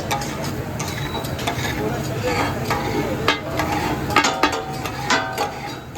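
Katakat being cooked: metal spatulas striking and scraping on a hot iron tawa as goat offal is chopped and stir-fried, over a steady sizzle. The ringing clacks come irregularly and grow more frequent in the second half.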